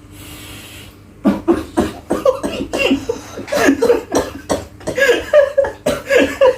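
A man coughing hard in rapid, repeated fits after inhaling a very cold vape, the harsh throat hit of an icy e-liquid. A soft breathy hiss comes first, then the coughing starts about a second in and keeps going.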